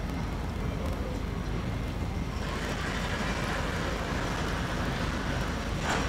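Steady street background noise: a low traffic-like rumble, with a busier mid-pitched din from about two and a half seconds in and a short sharp noise near the end.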